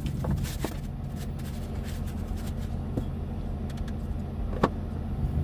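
Steady low background hum, with a few light clicks and taps from handling the plastic parts of a boxed clip fan.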